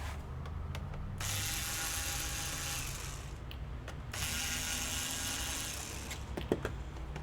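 Small electric screwdriver whirring in two spells of about two seconds each, undoing screws on a laptop's case.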